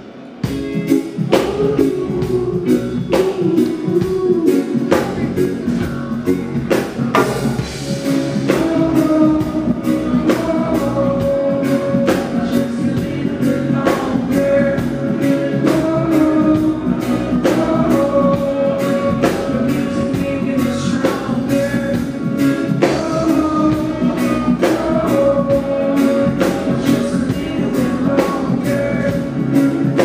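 Live reggae band playing loudly through a venue PA, heard from the crowd: a steady drum beat, electric guitar and bass, with a male lead vocal singing over them.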